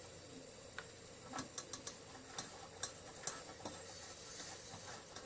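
Faint, irregular small clicks and ticks, about a dozen spread unevenly, from hands working the parts of a Coleman lantern.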